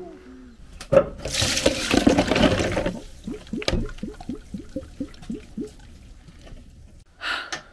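A knock, then water poured from a bowl through a plastic colander of soaked acorn pieces into a stainless steel sink: a splashing rush for about two seconds, followed by a run of quick drips, about four a second, as it drains. This is the tannin-laden leaching water being drained off the acorns.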